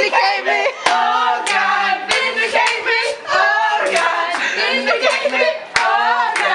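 Several young voices singing together, with hands clapping in a steady beat, a little under two claps a second.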